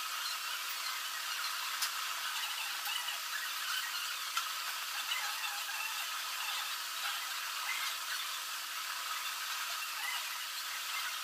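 Pencil scratching over paper, a continuous flickering hiss of small strokes, with a faint steady hum underneath.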